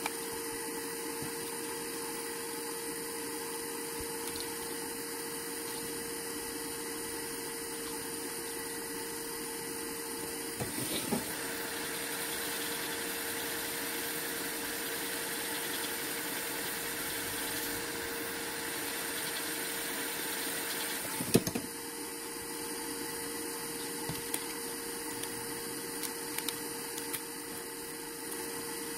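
Steady machine hum with a constant tone. A louder, airy hiss switches on with a click about eleven seconds in and stops with a sharper click about ten seconds later. A few light taps follow.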